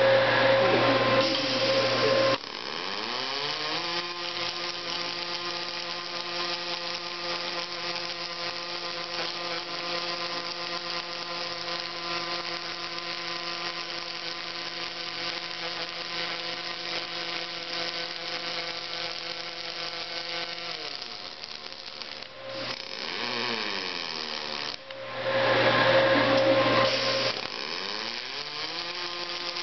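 Robotic hardfacing welding cell running: a steady machine whine that rises in pitch as it comes up about three seconds in and falls away around twenty seconds in, with louder, harsher noisy stretches at the start and again near the end.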